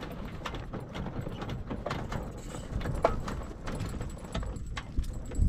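Roller-reefing gear at a small yacht's gooseneck being wound with its handle to unreef the mainsail, giving a run of irregular clicks and knocks as the boom turns.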